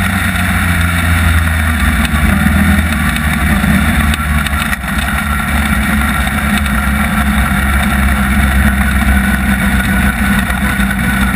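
Ford Focus-based four-cylinder midget race car engine running at speed, heard from inside the open cockpit: loud and steady, with a brief dip about five seconds in.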